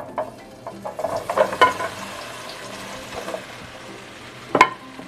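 Raw potato wedges tumbling off a plate into warm olive oil in a nonstick pan, clattering for the first two seconds, then a steady frying sizzle. One sharp knock near the end.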